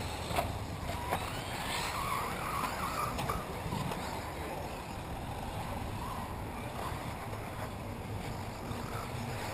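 1/8-scale electric off-road RC buggies racing: thin motor whines rising and falling as the cars speed up and slow, over a steady low rumble.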